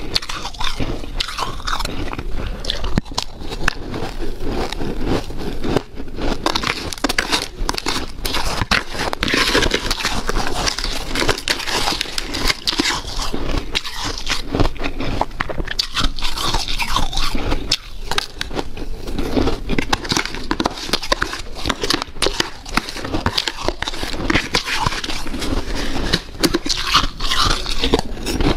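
Powdery, snow-like ice being bitten and chewed up close: continuous crunching with dense crackles and squeaks.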